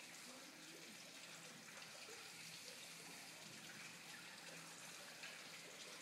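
Hunter Cabo Frio ceiling fan running on low in reverse (updraft): a faint, steady whoosh of moving air with a light motor hum.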